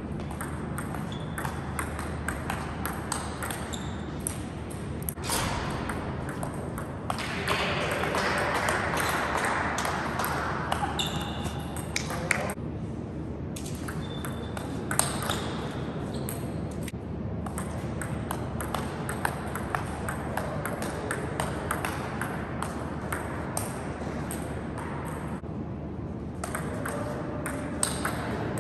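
Table tennis ball knocked back and forth in rallies: quick sharp clicks of the ball off the rubber bats and bouncing on the table, in an irregular run throughout.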